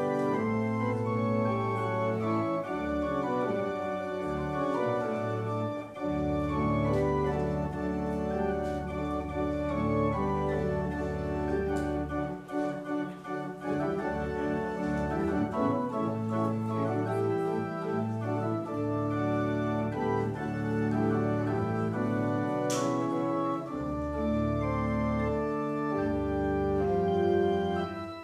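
Organ playing the closing postlude: held chords over sustained low bass notes, with one short click about three quarters of the way through.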